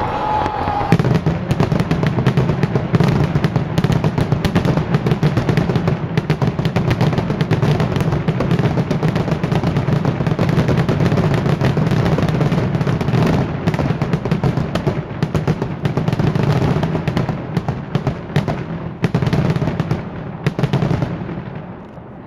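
Dense barrage of Taipei 101 New Year's fireworks: rapid crackling and bangs running almost without a break over a steady low rumble, easing off about twenty-one seconds in.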